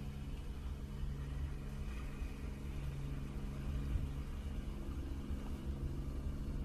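Steady low mechanical hum, with a few held low tones over a rumble.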